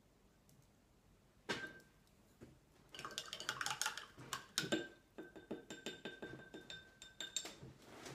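Paintbrush being rinsed in a glass jar of water, clicking rapidly against the glass. The glass rings faintly under the clinks.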